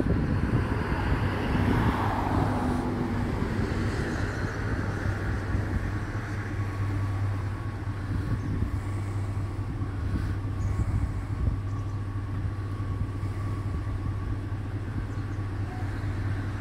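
A vehicle engine running steadily at idle, a low rumble, with a car passing on the road about two seconds in.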